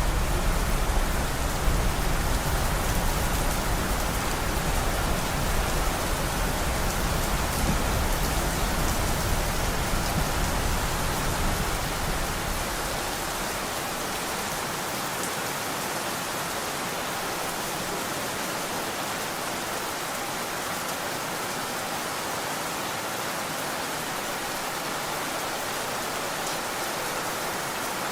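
Steady rain. A low rumble sits beneath it for the first twelve seconds or so, then drops away, leaving an even hiss of rain.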